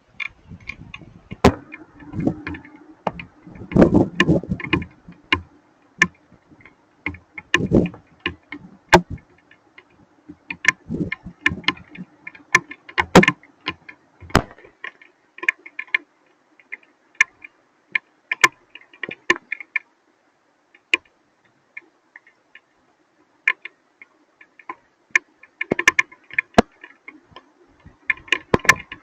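Hailstones striking hard surfaces: scattered, irregular sharp clicks and taps, coming in thick clusters in the first half and again near the end, and thinning out in between.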